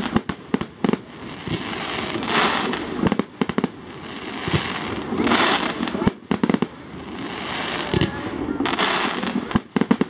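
Fireworks display: aerial shells bursting in clusters of sharp crackling bangs about every three seconds, with a swelling rush of noise between the bursts.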